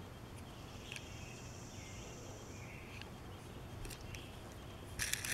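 Quiet handling of a small die-cast toy car in the fingers: soft clicks about a second in and again about four seconds in, and a short rustle near the end, over a low steady hum.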